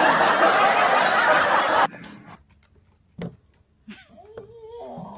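Crowd laughter from a laugh track that cuts off abruptly about two seconds in. After it comes a much quieter stretch with one sharp knock and a faint wavering whine near the end.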